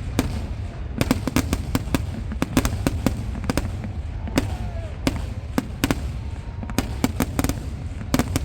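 Festival fireworks barrage: a rapid, irregular volley of sharp firecracker bangs, several a second, over a continuous low rumble from the massed explosions.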